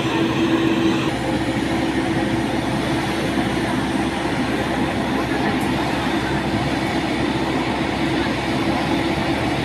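Steady drone of airport apron machinery around a parked airliner, with a constant humming tone under it.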